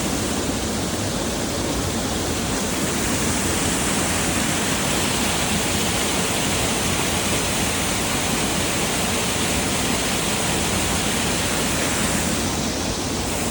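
Waterfall rushing steadily: an even roar of falling water that holds the same level throughout.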